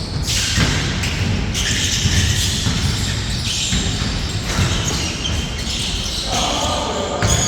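A basketball bouncing on the court during play, with thuds and high-pitched sounds from the players moving.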